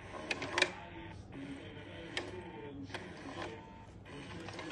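Motor of a battery-powered pop-up cat toy whirring inside its plastic dome, with several sharp clicks and taps as the cat paws at the dome.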